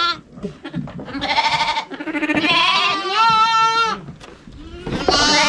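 Lambs bleating: a few long, high calls one after another, each lasting about a second.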